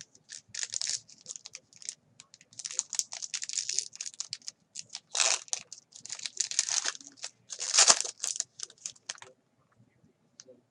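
Plastic wrapping on a box of football trading cards being torn open and crinkled, in repeated tearing and crackling bursts that stop about nine seconds in.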